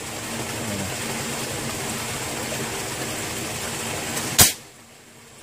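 A single sharp air rifle shot about four seconds in, fired over water at fish, after a few seconds of steady background noise.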